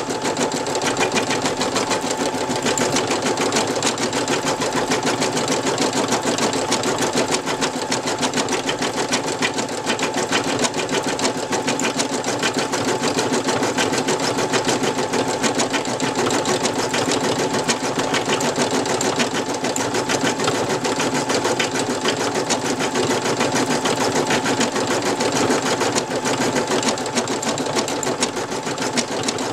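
Brother NV2600 computerized embroidery machine stitching out a design: a rapid, even clatter of needle strokes over a steady motor hum, running without pause.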